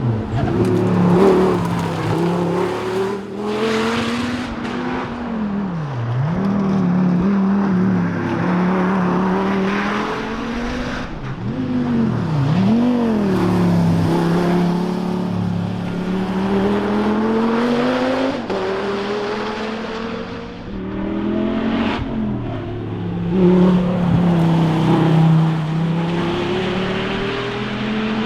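Dodge Viper ACR's V10 engine at racing speed, its note climbing under acceleration and swooping down sharply under braking and downshifts, deeply about six seconds in and again about twelve seconds in.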